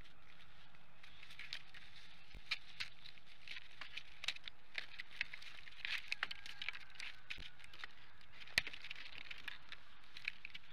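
Sticks and twigs of a bald eagle nest crackling, rustling and clicking irregularly as two bald eagles shift about on it and handle a large stick, with one sharper snap about eight and a half seconds in.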